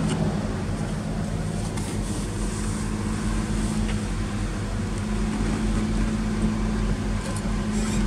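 A steady low mechanical hum with a faint drone, unchanging throughout.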